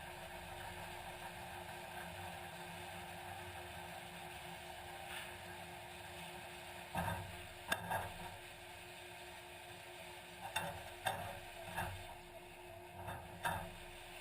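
A motor running steadily, with a series of irregular knocks and clanks starting about halfway through.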